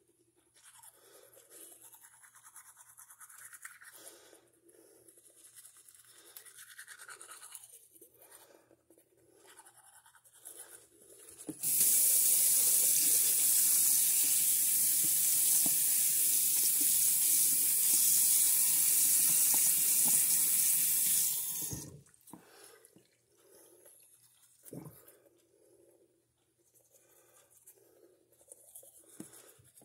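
Manual toothbrush scrubbing teeth with quiet, rhythmic strokes. About twelve seconds in, a tap runs full into a sink for about ten seconds, the loudest sound here, and then cuts off suddenly. The brushing then starts again.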